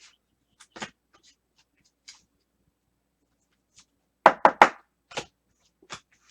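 Trading cards being handled on a tabletop: scattered soft clicks and taps, with three quick loud knocks a little past four seconds in, followed by two lighter taps.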